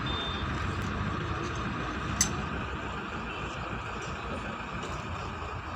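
Steady roadside background noise of vehicles, with one sharp click about two seconds in.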